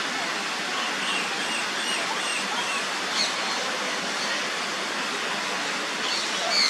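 Aviary ambience: a steady rushing noise, with a short run of faint, high bird chirps about a second in and another brief chirp a little after.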